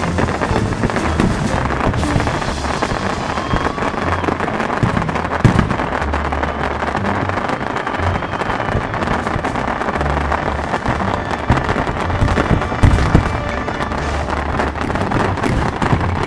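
Fireworks display: aerial shells bursting and crackling continuously, with sharper bangs about five seconds in and again near thirteen seconds, over music with a deep bass line.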